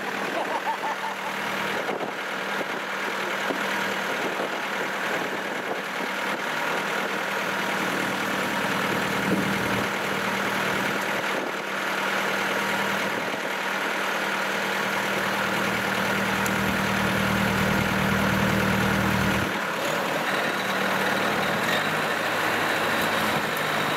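Rice combine harvester engine running steadily. Its note turns heavier and deeper about a third of the way in, then drops back sharply a few seconds before the end.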